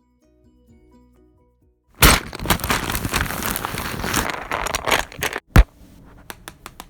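A few soft musical notes, then a loud crackling, crunching noise for about three seconds, ending in one sharp crack, followed by a run of light, quick clicks.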